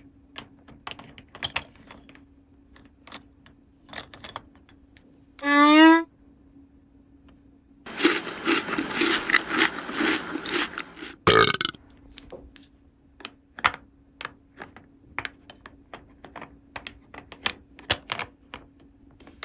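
Small plastic toy playset pieces clicking and tapping as they are handled. About five seconds in comes a short wobbling pitched sound, and a few seconds later about three seconds of loud rushing noise ending in a sharp burst.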